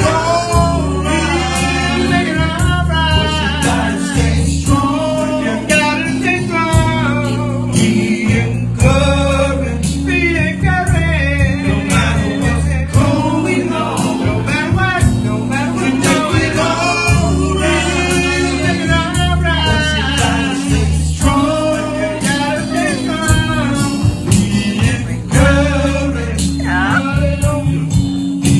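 Blues gospel song played by a band: a male lead singer over guitar, bass and drums keeping a steady beat.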